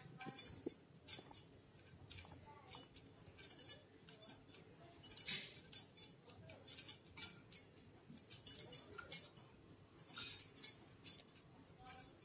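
Light, irregular clinking of glass bangles on a wrist as hands pinch off and shape small balls of dough.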